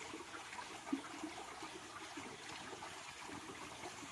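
Shallow stream trickling and babbling over stones, with one brief sharp knock about a second in.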